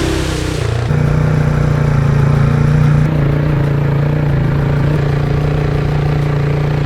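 Quad bike engine running steadily under way. Its pitch and level step up slightly about a second in, then hold.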